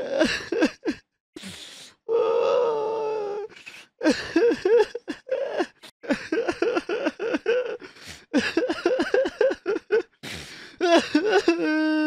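A person crying: a long wail about two seconds in, then runs of short sobs in quick succession, and another long drawn-out wail near the end.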